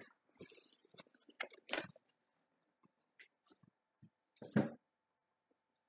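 Faint handling noise: scattered small clicks and rustles, with two louder knocks, one a little under 2 seconds in and one about 4.5 seconds in.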